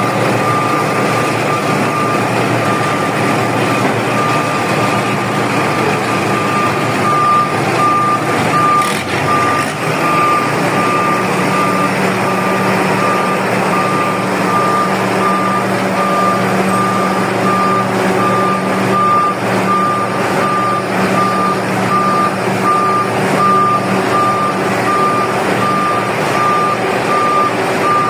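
Bulldozer's reversing alarm beeping about once a second over its running diesel engine, the engine note deepening and firming about ten seconds in.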